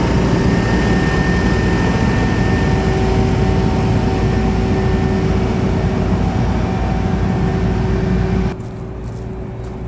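Motor vehicle running steadily, with a steady low drone and a faint hum; the noise drops off suddenly about eight and a half seconds in.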